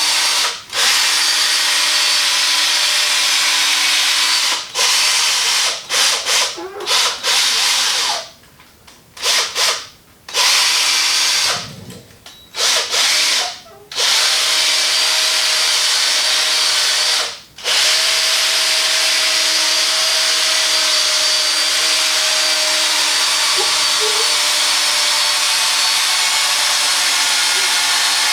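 Electric polisher spinning a foam buffing pad over a plastic headlight lens to apply finishing polish. It runs steadily with a whirring hum and stops for a moment several times, with longer pauses between about 8 and 14 seconds in.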